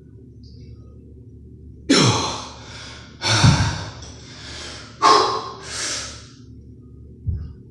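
A man breathing out hard four times in heavy, sighing exhales, the effort breaths of straining into flexed muscle poses.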